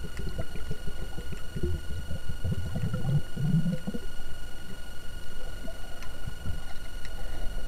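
Muffled underwater sound picked up by a camera beneath the surface: a low rumble of moving water with soft irregular thuds, heaviest between about one and a half and four seconds in, over a thin steady high whine.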